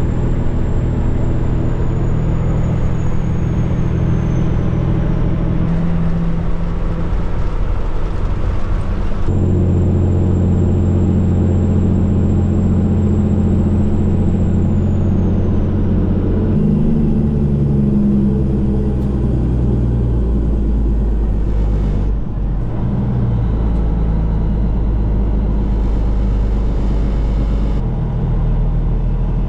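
Vehicle engine running steadily under load, heard in several short cut-together stretches, each with a slightly different engine pitch, and a faint high whine that slides down twice.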